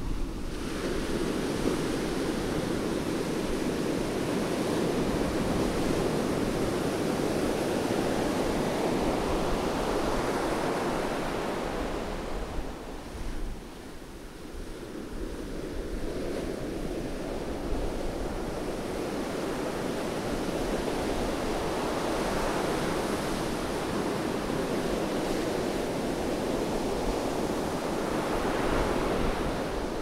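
Rough sea surf breaking and washing up a sandy beach: a continuous rushing wash of foam that eases briefly about halfway through, then builds again as the next waves break.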